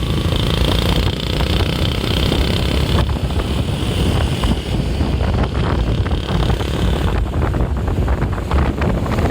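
Tour bus diesel engine running close by: a heavy, steady low rumble. From about seven seconds in, rough crackling from wind buffeting the microphone.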